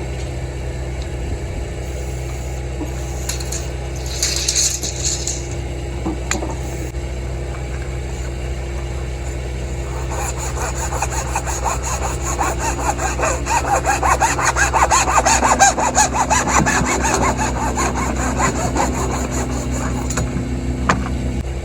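A hand saw cutting sewer pipe with quick back-and-forth strokes, starting about ten seconds in and stopping near the end. A steady low engine idle runs underneath.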